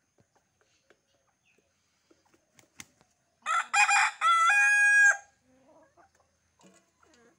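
A rooster crows once, about three and a half seconds in: a few short notes run into a held note that steps down in pitch, the whole crow lasting under two seconds.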